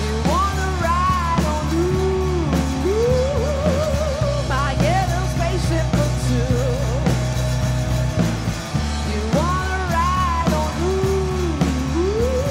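Rock band playing live: a woman singing a wavering melody over electric guitar, electric bass and a drum kit.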